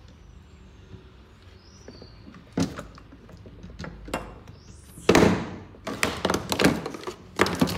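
Plastic toiletry bottles knocking and clattering on a wooden dressing table as a baby monkey clambers among them: two separate knocks, then a busier run of clatter in the second half.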